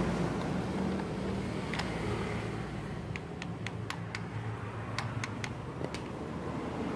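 Small sharp clicks and taps of plastic and metal parts as a rotary hammer drill's motor housing is handled and fitted back together, a dozen or so bunched in the middle, over a steady low background rumble.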